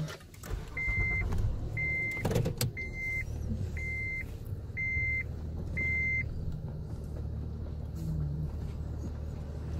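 Six evenly spaced electronic beeps, each about half a second long and about one every three-quarters of a second, stopping about six seconds in. Under them is a steady low hum heard from inside the car's cabin.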